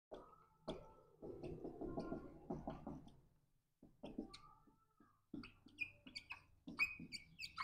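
Dry-erase marker writing on a whiteboard: faint, irregular scratching strokes with a few brief squeaks.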